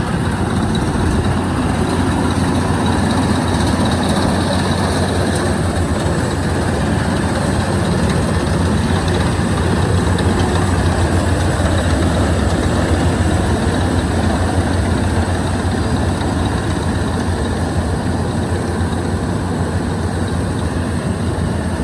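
A heavy engine running steadily at a constant speed, with a strong low hum.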